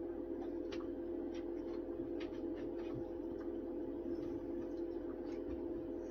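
A steady humming drone of two held tones, with faint, irregular light clicks scattered through it as fingers handle a small gold specimen.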